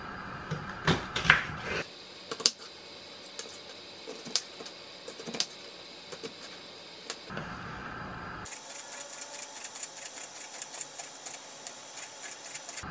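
Kitchen knife chopping on a wooden cutting board: scattered taps while dicing an onion, then a quick, even run of many taps near the end while slicing a green vegetable.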